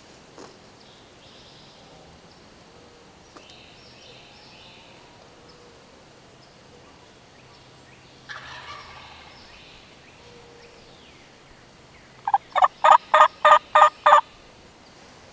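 Wild turkey gobbler gobbling loudly near the end, a rapid rattling run of about eight notes lasting about two seconds.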